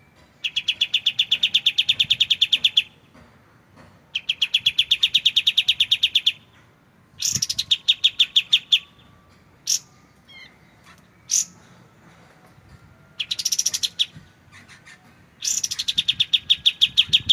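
Kapas tembak bird song: fast rattling trills of clear, evenly repeated notes, about a dozen notes a second, in five bursts of one to two and a half seconds separated by short pauses, with a couple of single sharp notes in the longer gap midway.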